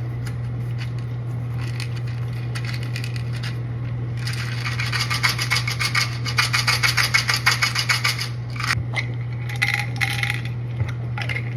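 Ibuprofen pills rattling in a plastic bottle as it is handled and shaken, with a fast run of small clicks in the middle, over a steady low hum.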